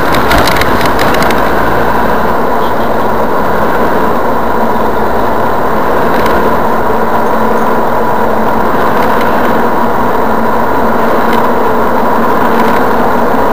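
Steady engine drone and tyre noise from inside a moving car's cabin on a wet road, with a few clicks in the first second or so.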